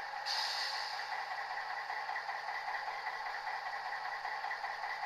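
Sound decoder in a Piko model of the PKP SU45 diesel locomotive playing the engine's idle through its small speaker: a steady, thin, buzzy sound with no bass. A brighter hiss comes in a moment in and then eases off.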